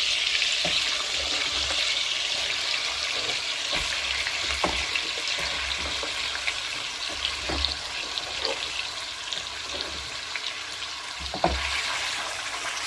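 Hot oil sizzling in a frying pan with chopped onion and ginger-garlic frying in it, the hiss slowly easing off. A few short knocks of a stirring utensil against the pan.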